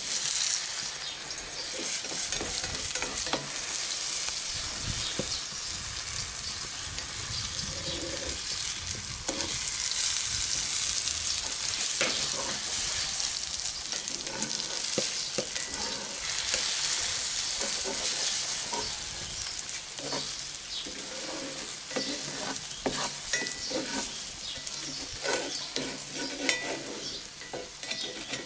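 Eggs sizzling in hot oil in a cast iron skillet as they are scrambled with a slotted spatula, which scrapes and taps against the pan again and again. The sizzle swells in the middle.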